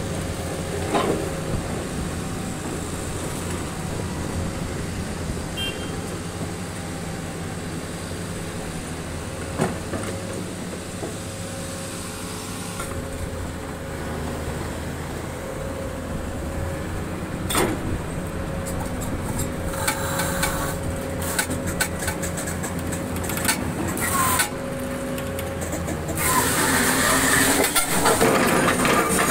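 Diesel hydraulic excavator engine running steadily under load, with a few sharp knocks of its steel ripper tooth against granite. Near the end a louder stretch of scraping and grinding as the ripper is wedged against the edge of a granite block to pry it.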